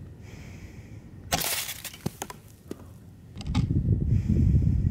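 A single sharp crack from a .25 break-barrel spring air rifle about a second and a half in, followed by a few light clicks. From about three and a half seconds a loud, low rumbling noise comes in.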